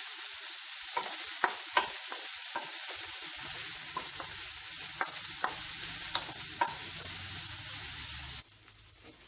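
Sliced onions, green chilli, garlic, ginger and curry leaves sizzling in coconut oil in a white nonstick pan as they are sautéed to soften, stirred by a wooden spatula that scrapes and taps against the pan now and then. The sizzle cuts off abruptly near the end.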